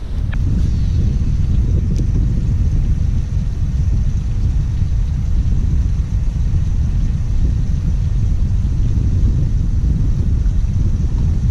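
Wind buffeting the camera microphone: a steady low rumble with no pitch to it.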